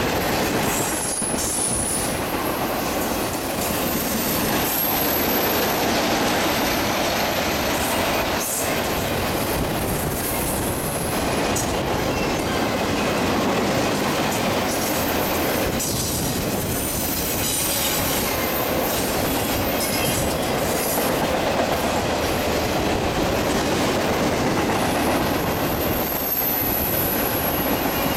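Intermodal freight train's cars rolling past at speed, with a steady rumble and clatter of wheels over the rails. A few brief, high-pitched wheel squeals come near the start and near the end.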